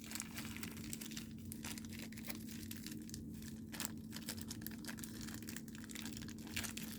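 Faint rustling and light clicks of small plastic building pieces being handled and pried open, over a steady low hum.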